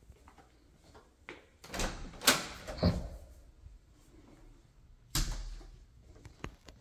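Interior closet door being opened by hand: a cluster of knob-latch clicks and knocks about two seconds in, the loudest a sharp click, then another knock a little after five seconds.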